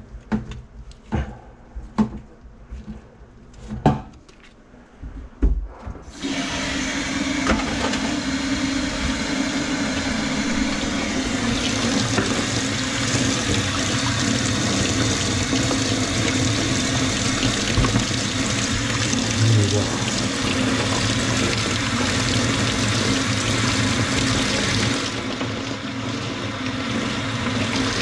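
Tools knocking and clicking in a plastic work bucket for the first few seconds, then a kitchen faucet turned on about six seconds in, running steadily and splashing into a stainless steel sink as the water goes down the drain.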